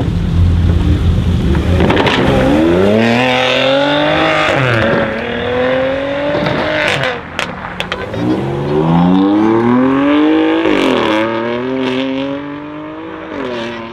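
Tuned Brabus Mercedes-AMG GLE43's twin-turbo V6 accelerating hard, its exhaust note climbing steadily with a brief dip at a gear change. Each run ends in a string of sharp exhaust crackles and pops as the pitch falls, about seven seconds in and again about eleven seconds in. It starts from a low steady rumble and ends on a lower steady note.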